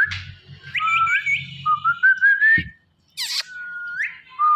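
A ringneck parrot whistling a series of held notes, several ending in an upward flick, with one short harsh squawk about three seconds in.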